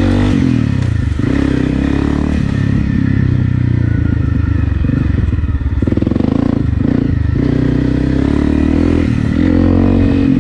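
Honda CRF250 Rally's single-cylinder four-stroke engine, fitted with an aftermarket FMF PowerCore 4 exhaust, riding slowly along a dirt trail. Its note rises and falls, drops to a slower pulsing about six seconds in, and picks up again near the end.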